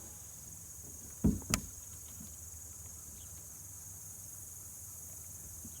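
Steady high-pitched insect trill, with a short thump and a sharp click close together about a second and a half in.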